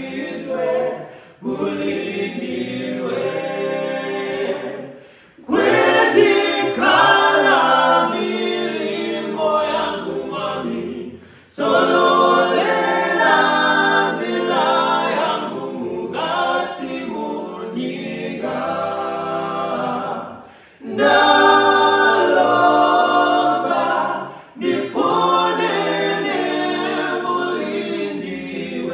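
A male a cappella group of five singing in close harmony without instruments, in sung phrases broken by short breaths every few seconds.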